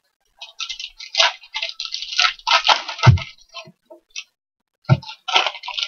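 Foil wrappers of Panini Mosaic basketball card packs crinkling and crackling as the packs are handled and torn open by hand, with two dull thumps on the table, about three seconds in and near the end.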